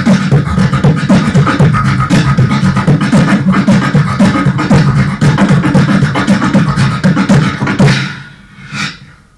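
Beatboxing into a handheld microphone: rapid kick, snare and hi-hat-like mouth sounds over a steady low hum. The routine stops abruptly about eight seconds in, followed by a short fading sound.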